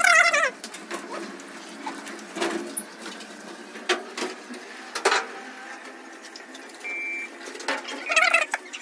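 Shih Tzu puppy whimpering in high-pitched cries during its bath, once at the start and again near the end, frightened of the washing. Two sharp knocks on the stainless steel tub come in between, over the low hiss of the hand shower's spray.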